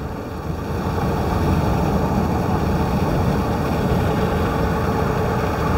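Steady engine and road noise heard from inside a car's cabin while driving, growing slightly louder about a second in.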